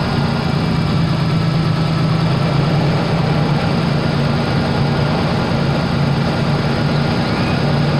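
Ford Bronco II's 2.9-litre V6 engine idling steadily.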